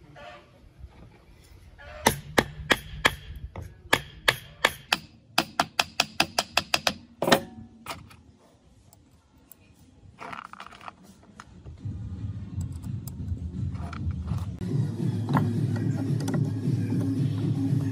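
A quick run of sharp metallic clicks and knocks, like parts being fitted or tapped together. After a short quiet spell, a steady motor hum starts and grows louder over the last few seconds.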